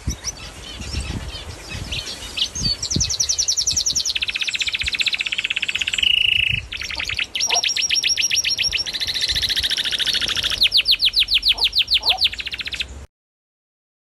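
Songbird singing a series of long, rapid trills at a few different pitches, with one held buzzy note in the middle. The song stops abruptly about a second before the end.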